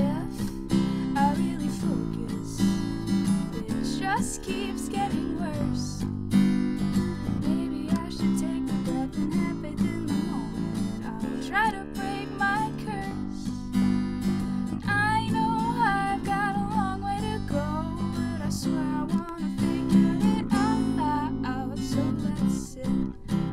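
Acoustic ska song: strummed acoustic guitar over electric bass, with a voice singing the melody.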